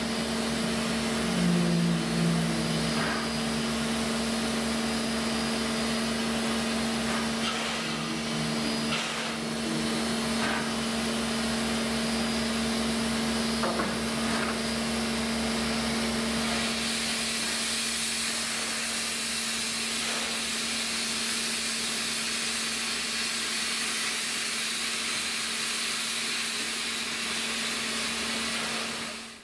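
Steady hiss of escaping steam from standing steam locomotives 3801 and 3526, with a constant low hum underneath. A few light knocks sound in the first half, and the hiss grows stronger a little past halfway.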